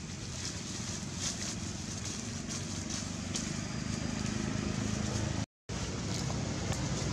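Steady outdoor background noise with a low rumble and a few faint ticks and rustles, such as dry leaves being disturbed; the sound cuts out completely for a split second a little past halfway through.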